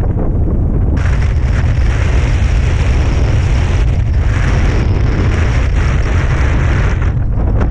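Wind buffeting the microphone of a camera mounted on a hang glider in flight: a heavy, constant low rumble with a rushing hiss that comes in about a second in, rises and falls, and drops away near the end.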